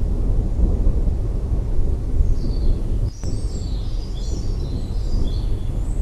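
Low, continuous rumble of thunder. From about two seconds in, birds give several short, high chirps over it.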